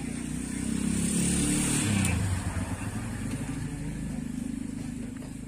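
A motor vehicle engine passing by, loudest between one and two seconds in, then dropping in pitch and fading.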